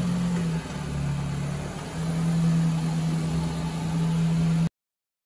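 A car engine idling with a steady low hum, cutting off abruptly near the end.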